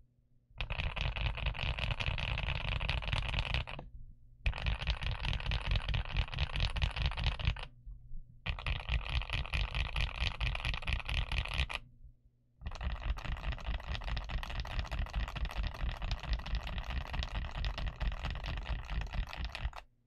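Fast typing on a GMK67S mechanical keyboard with Gateron Ultra Glory Pro Yellow linear switches and Womier DS PBT keycaps: a dense, rapid clatter of keystrokes in four runs, broken by three short pauses.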